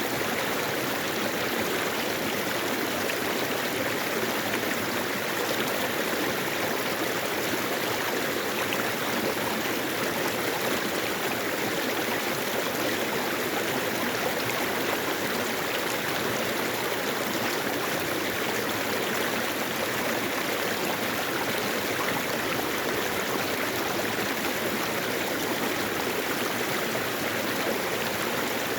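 Mountain valley stream flowing over rocks: a steady, unbroken rush of water.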